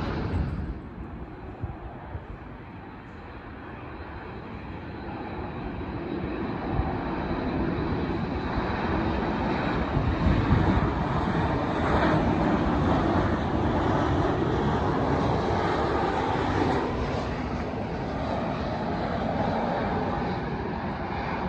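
Jet airliner on approach: a dense engine roar that cuts off abruptly about a second in, then a twin-engine jet's noise builds steadily as it comes nearer and holds loud for the second half.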